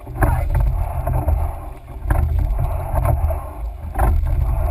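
Oars of a coxed four rowing shell knocking sharply once per stroke, about every two seconds, over a steady wind rumble on the microphone.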